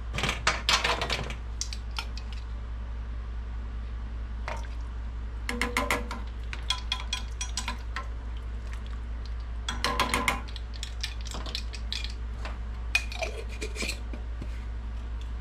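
A plastic measuring spoon clinking and scraping against a glass jar and a small stainless steel saucepan as sauce is scooped out and stirred in, in four short clusters of clicks, over a steady low hum.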